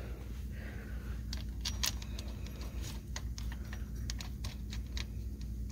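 Light, irregular clicks and taps of small metal engine parts being handled and fitted by hand, over a steady low hum.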